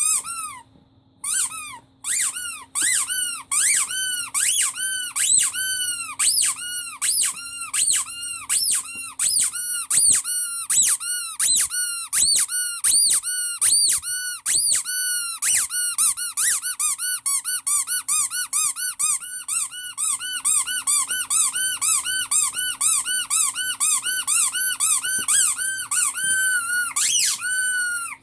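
Rubber squeaky toy squeezed over and over, each squeak rising and falling in pitch. A few spaced squeaks at first, then quick, steady squeaking, about two to three a second.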